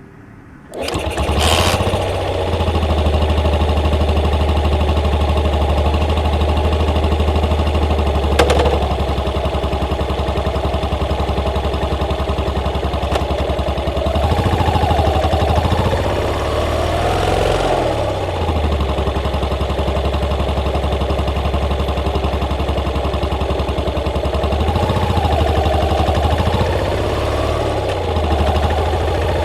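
Motorcycle engine starting about a second in and then idling steadily, its pitch rising and falling slightly twice.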